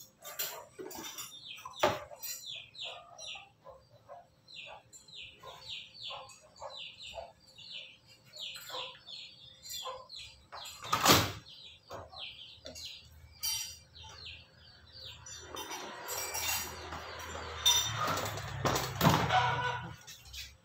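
Small birds chirping over and over, several quick, falling chirps a second. There is a sharp knock about two seconds in and a louder one about eleven seconds in, then a few seconds of rustling noise near the end.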